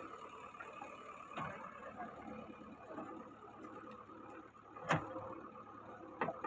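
JCB 3DX backhoe loader's diesel engine running steadily, with a few sharp knocks as the bucket works a pile of loose stones; the loudest knock comes about five seconds in.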